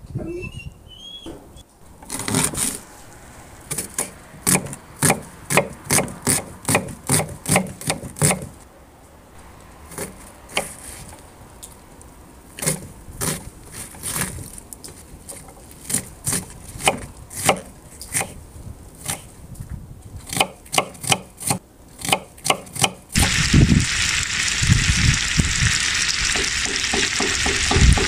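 Kitchen knife chopping an onion on a wooden cutting board: a long run of sharp chopping strokes, about two a second, with a short pause. About 23 seconds in this gives way to a loud, steady sizzle as chopped onion hits hot oil in a cast-iron cauldron.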